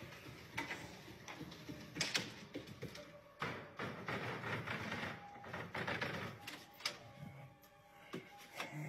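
Footsteps and handling noise from a phone carried through a house: irregular knocks and clicks over a rustling scrape.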